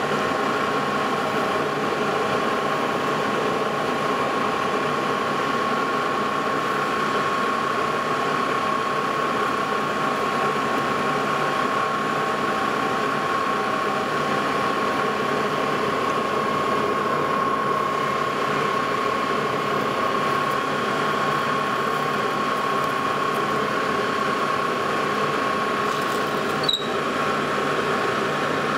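Lodge & Shipley engine lathe running at slow spindle speed while a 1-inch twist drill in the tailstock drills through a spinning flange: a steady mechanical running sound with a constant whine. One short sharp click near the end.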